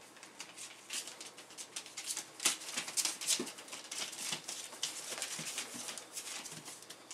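Bullmastiff puppies scrabbling about, a dense, irregular patter of small claws and paws scratching and tapping on a blanket and wooden boards. A few short faint squeaks come from the litter.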